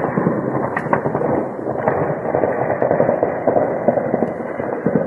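Distant heavy barrage of weapons fire: a dense, continuous crackle of rapid overlapping reports with no break. This is sustained firing that goes on for minutes at a time.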